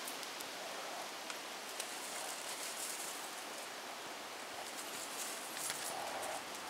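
Soft rustling and a few light clicks as loaded panniers and pack-saddle straps are handled on a pack animal, over a steady outdoor hiss.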